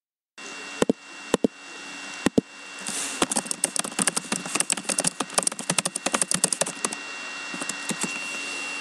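Typing on a laptop keyboard: a few separate key clicks, then a quick run of typing from about three seconds in that thins out to a few clicks near the end.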